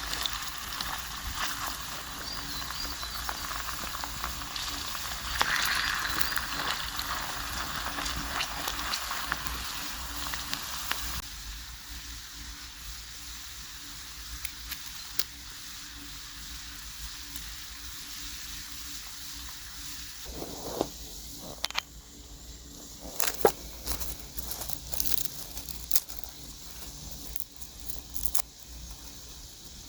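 Potato wedges frying in a pan over a campfire: a steady sizzle that drops off abruptly about eleven seconds in. The rest is quieter, with scattered sharp clicks and knocks in the last third.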